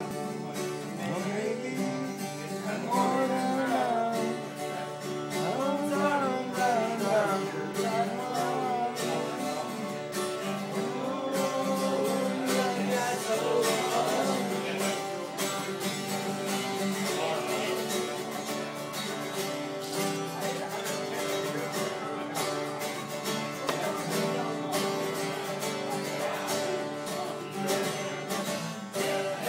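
Two acoustic guitars strummed and picked together in a country-style song, with a man singing over them through much of the first half.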